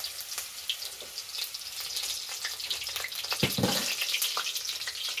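Batter fritters of baagher doga (tiger leaf stems) deep-frying in hot oil in a karahi, sizzling with a rapid crackle of small pops. A brief lower sound comes about three and a half seconds in.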